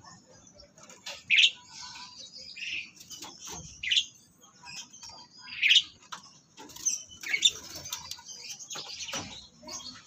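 Caged starlings calling, with five loud short calls spaced about a second and a half to two seconds apart and softer chirps in between.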